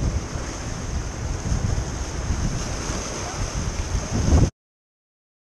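Ocean surf washing and splashing against a rocky shoreline, with wind buffeting the microphone. The sound cuts off suddenly to silence near the end.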